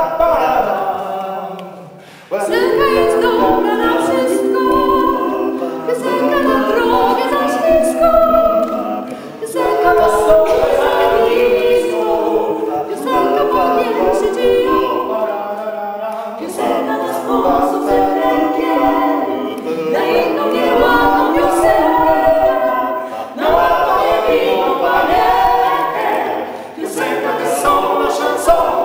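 Mixed men's and women's voices of a small a cappella ensemble singing in harmony without instruments, in phrases of a few seconds, with a brief drop about two seconds in before the next phrase comes in strongly.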